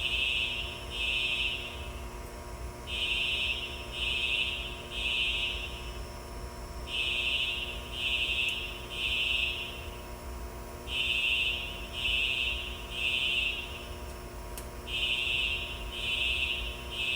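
Fire alarm horns sounding the temporal-3 evacuation signal: three short high tones about a second apart, then a pause, the group repeating every four seconds.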